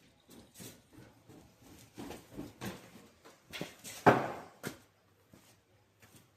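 Irregular knocks and clunks of hand tools working on the diskbine's cutter bar while loosening tight bolts, the loudest clunk about four seconds in.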